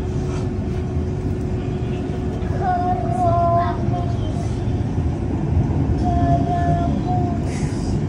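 Steady low machinery rumble heard inside a passenger submarine's cabin, with a faint steady hum that stops about halfway through.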